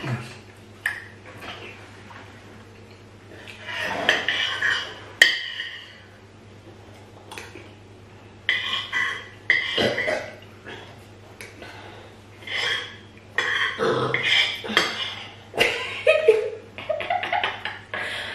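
Eating at a table: a spoon clicking and scraping against a plate and bowl, with mouth sounds of chewing in between, over a steady low hum.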